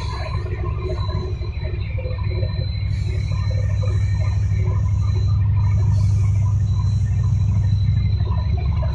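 Fried pasta snack production line machinery running with a steady low hum and a faint steady high tone above it.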